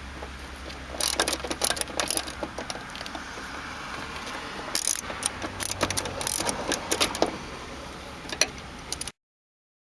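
Ratchet wrench with a 10mm socket clicking in quick runs while tightening the bolt on a 2001–2005 Honda Civic's fuel door release mechanism, two bursts of rapid ticking with handling clinks between.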